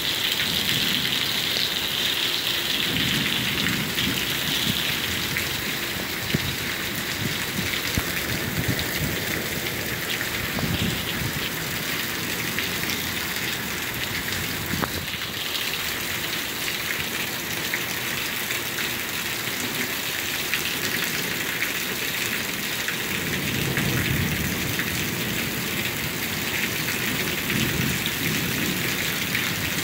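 Heavy thunderstorm rain pouring steadily, with low thunder rolling in a few times, the strongest rumble about three-quarters of the way through.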